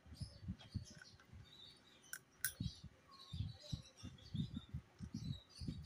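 A few light metal clicks as a spanner works a bolt on a motorcycle brake master cylinder, two sharp ones close together about two seconds in, over irregular low bumps. Birds chirp faintly in the background.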